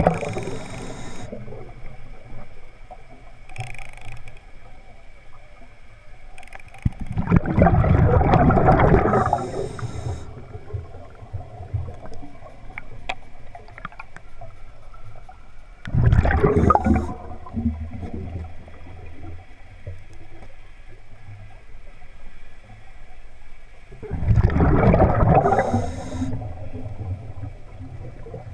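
Scuba diver breathing through a regulator, heard underwater: three loud bursts of exhaled bubbles about eight seconds apart, with short high hisses between them.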